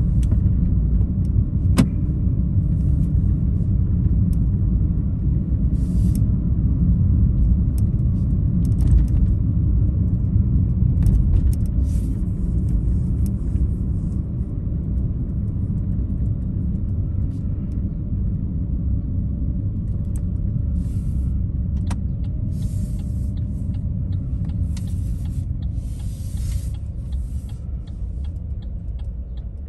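Car road noise and engine rumble from inside a moving car, steady and low, with scattered light clicks and brief hissing swells. It eases off over the last few seconds as the car slows.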